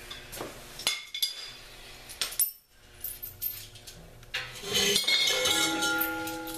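Metal tools and hardware clinking as a socket and wrench are handled to tighten bolts, with sharp clicks and then a louder metallic clink about five seconds in that keeps ringing.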